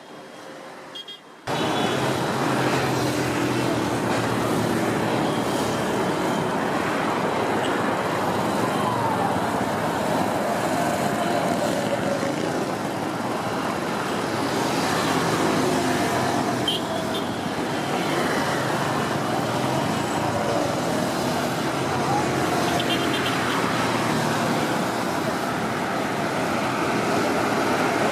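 Road traffic: motor vehicles running and passing, a steady wash of engine and tyre noise that starts abruptly about a second and a half in.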